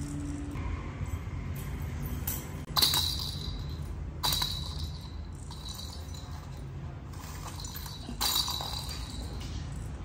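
Cat toy's coiled wire spring twanging as the toy mouse on it is flicked: three sharp metallic clinks with a short ring, about three, four and eight seconds in.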